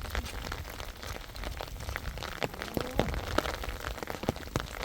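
Rain falling, with close drops striking a surface as irregular sharp ticks over a steady hiss.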